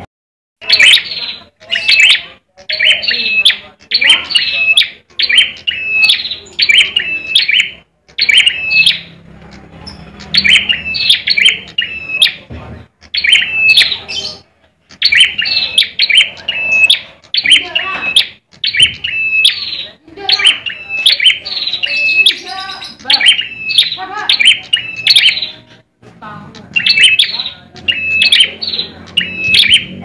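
Caged ciblek (prinia) songbirds calling loudly in quick repeated chirping phrases, about two a second, with a few short breaks.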